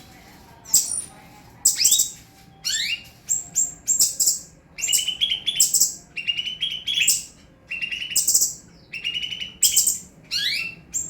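A songbird sings a busy, continuous song of sharp high chirps, quick rising sweeps and rapid trills, phrase after phrase with short gaps between.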